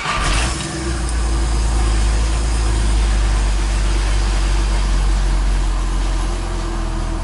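Chevrolet Omega 4.1's 4.1-litre straight-six engine catching on a cold start after about twenty days parked, settling within the first second into a steady idle. The start is light and easy.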